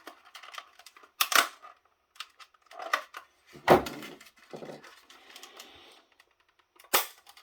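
Plastic housing of a snap-together cordless headset base station being pried and forced apart by hand. Its clips and case crack and click, with three loudest sharp snaps about a second in, midway and near the end, and faint scraping of plastic in between.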